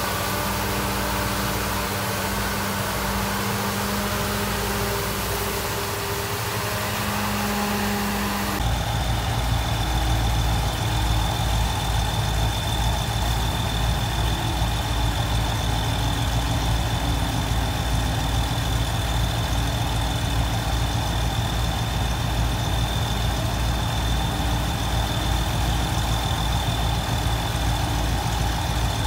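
Heavy diesel engines of excavators and a floating sand dredge running steadily. About eight seconds in the sound changes abruptly to a louder, rapid low engine throb with a steady high whine over it.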